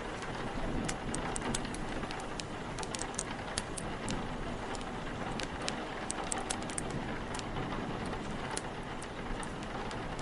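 Steady rain with a wood fire crackling: irregular sharp pops and snaps scattered throughout over the even hiss of the rain.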